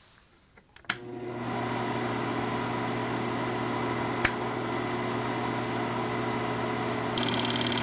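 Bell & Howell film projector switched on with a click about a second in, its motor starting up and then running steadily with a hum and whir. A second sharp toggle-switch click comes about four seconds in, and a fast high ticking joins the running sound near the end.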